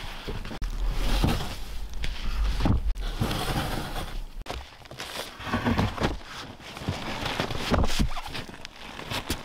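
Irregular crunching and scuffing in snow as a garden hose is dragged over it and a person shuffles about on hands and knees, with a low rumble for the first few seconds.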